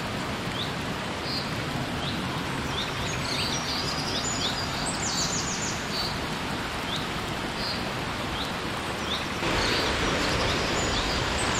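Steady rush of a small forest waterfall and stream, with birds calling over it: short chirps every second or so and a quick trill a few times. The rushing noise gets louder about nine and a half seconds in.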